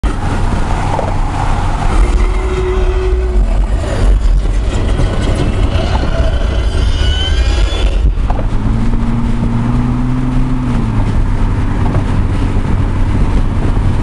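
Inside a turbocharged 1999 Chevrolet Monte Carlo with a 3800 V6 cruising at highway speed: a steady engine drone mixed with road and wind noise, and a few brief held tones.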